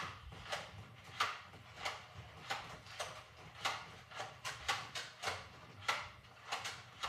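A steady series of short, light knocks, about three every two seconds, over a faint low hum.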